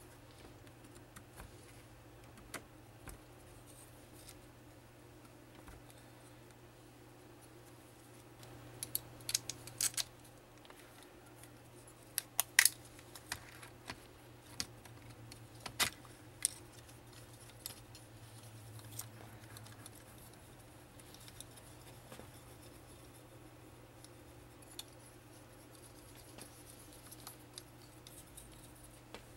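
Scattered light clicks, taps and small metallic rattles of parts being handled by hand as a 48RE transmission valve body's pressure regulator, transducer and wiring connectors are fitted. There is a run of sharper clicks about a third of the way in, and the loudest click comes shortly after. A faint steady hum lies underneath.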